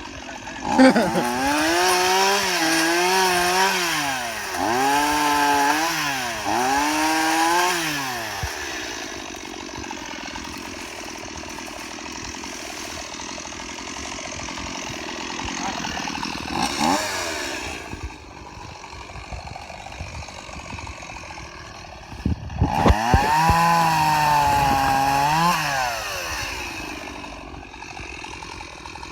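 Two-stroke chainsaw revving hard in bursts, its pitch climbing and dipping several times during the first eight seconds. It then runs at idle, with a short rev in the middle, and revs hard again about 23 seconds in.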